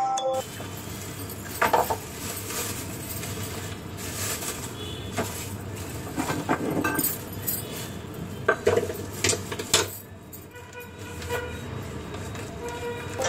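Kitchen clatter: a few sharp clinks of steel pots, spoons and dishes, with handling noise between them, over a steady low hum.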